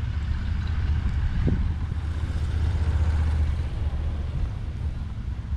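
Street traffic: a vehicle passing on the road, its noise swelling to its loudest about three seconds in and then fading.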